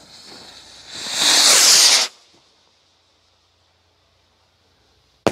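Firework rocket launching: a faint fuse sputter, then a loud whoosh of the rocket motor that swells for about a second and cuts off abruptly. A single sharp crack of a burst right at the end.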